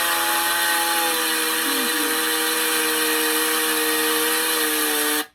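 Chainsaw running steadily at speed, its pitch dipping briefly about two seconds in, then cutting off suddenly near the end.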